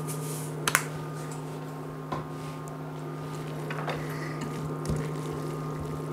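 Wooden spoon stirring a rice, spring onion and herb filling in a stainless steel pot, with a few light knocks and scrapes of the spoon against the pot, the clearest just under a second in, over a steady low hum.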